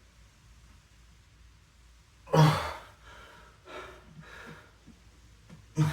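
A man exhaling hard with a loud voiced sigh about two seconds in, then softer breaths and another sharp exhale near the end: heavy breathing from exertion during a bodyweight exercise set.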